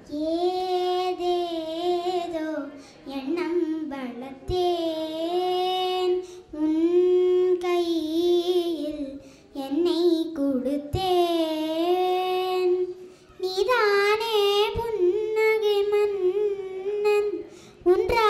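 A young girl singing unaccompanied into a microphone, in held phrases a few seconds long with short breaks for breath between them. The melody goes higher about thirteen seconds in.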